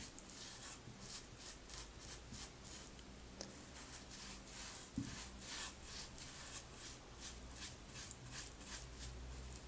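Paintbrush bristles stroking paint onto bare wood: a steady run of soft, scratchy swishes, about two or three a second, with one light bump about five seconds in.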